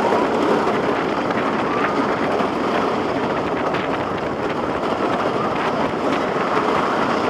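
GhostRider wooden roller coaster train running along the track. Its wheels and the rushing air make a loud, steady noise.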